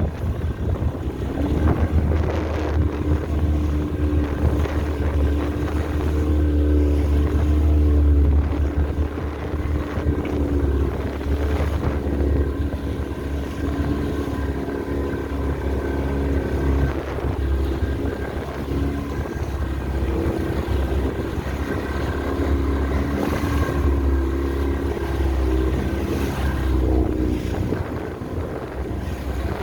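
Motorboat engine running steadily with the boat under way.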